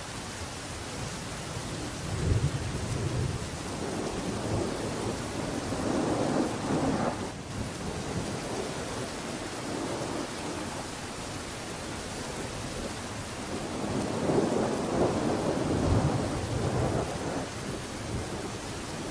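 Steady hiss like falling rain, with low rumbles swelling and fading about two seconds in, around six seconds in, and again near the end, like rolling thunder.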